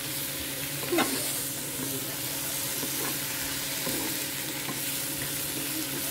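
Sliced mushrooms sizzling in butter in a non-stick frying pan while a wooden spatula stirs and scrapes them. There are small knocks, and one sharper knock about a second in.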